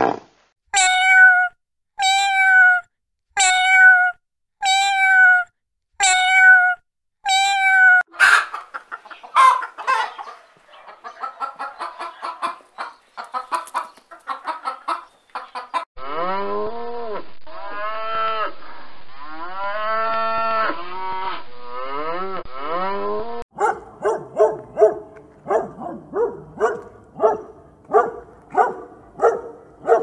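A string of different animal calls edited one after another. First come about seven evenly spaced pitched calls about a second apart, then a quick chatter of short calls. About halfway through a calf moos several times in drawn-out calls, and in the last few seconds there is a fast rhythmic run of short sounds, about two a second.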